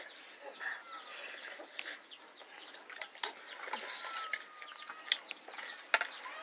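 Chickens and other birds calling steadily as many short, high falling chirps and a few longer falling whistles. Sharp clinks of metal spoons against steel bowls come every second or so.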